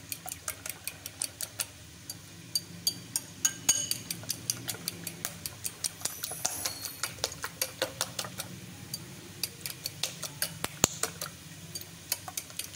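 Metal fork whisking raw eggs in a ceramic bowl, clicking against the bowl in a quick, even rhythm of about five strokes a second.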